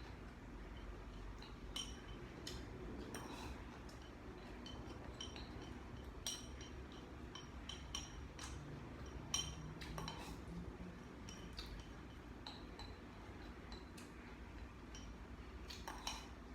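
Faint clinks of eating utensils against a bowl or plate every few seconds, over a steady low hum.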